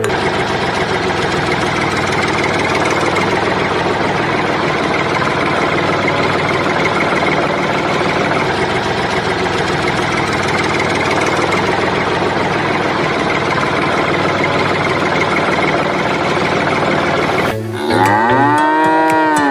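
A steady engine-like drone, then, near the end, a pitched mooing call that rises and falls several times.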